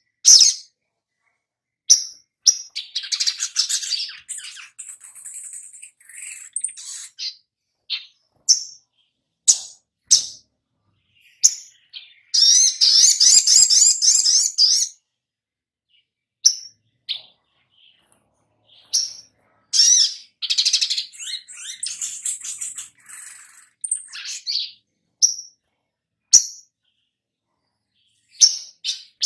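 A male olive-backed sunbird (sogok ontong) singing: sharp, high single chirps between bursts of rapid twittering. The longest and loudest burst comes about halfway through.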